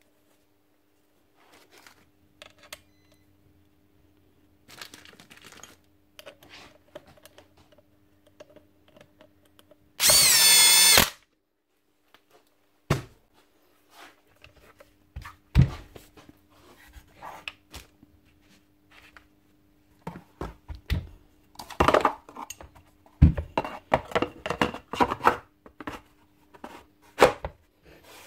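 Metal parts of a hammer drill being handled and fitted together, clinking and knocking, with a power tool running for about a second near the middle, its whine wavering in pitch. The clinks and knocks come thick and fast in the last third.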